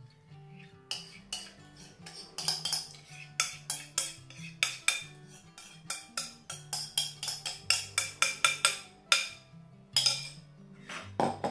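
Spoon knocking and scraping against a ceramic bowl in quick, irregular clicks, several a second, as thick salad dressing is scraped out of it, over soft guitar background music.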